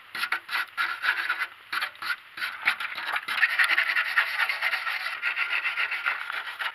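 A small stiff brush scrubbing caked dirt off a YaMZ-238 diesel's oil sump around the drain plug, cleaning it before the oil is drained. Quick scratchy strokes that run together into steady scrubbing about halfway through.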